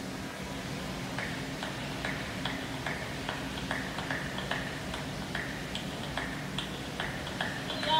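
Steady ticking, about two and a half ticks a second, played over the rink's speakers as the intro of the skating routine's music, over a steady low hum of the rink; the song itself starts at the very end.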